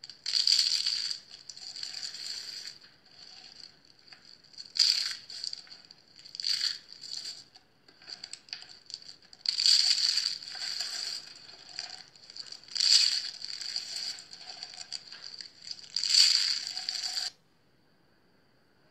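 Dried curls of shaved soap crumbled and crushed by hand: dry, crisp crackling in uneven bursts, louder about ten seconds in and near the end, then stopping abruptly.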